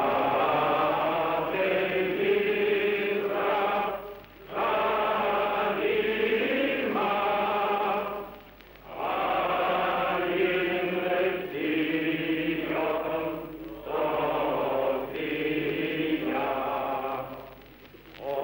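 Slow sung chant as background music, with long held notes in phrases that break off three times for a short pause.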